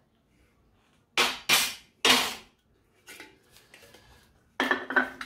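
Sharp metallic knocks from a pressed sheet-steel panel being knocked free of a tight laser-cut steel jig: three hard strikes about a second in, lighter clinks after, and another clatter near the end.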